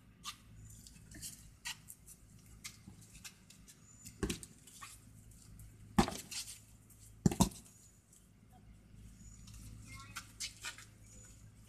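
A few sharp taps and knocks over a faint steady hum. The loudest come about four seconds in, a little after six seconds, and as a close pair around seven and a half seconds.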